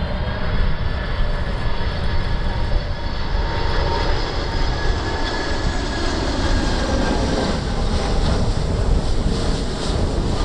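Boeing 747-400's four turbofan engines on final approach, a steady rumble with a thin high whine as the jet passes low overhead.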